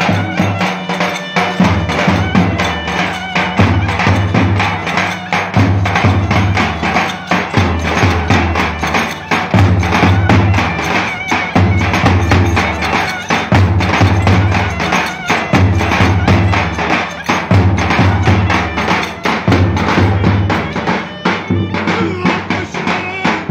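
Turkish folk dance music with a davul drum beating a fast, steady rhythm under a melody, with sharp wooden clacks on the beat.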